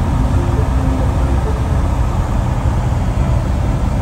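Steady, loud drone of a Cessna 170B's six-cylinder Continental O-300 engine and propeller, heard inside the cabin on final approach.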